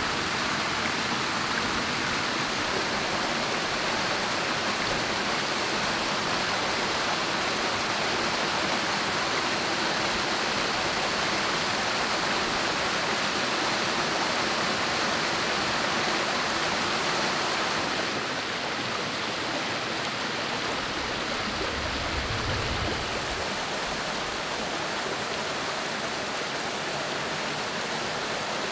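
Waterfall pouring into a pool, with water spilling over a low dry-stone weir: a steady rushing of water, a little softer about two-thirds of the way through.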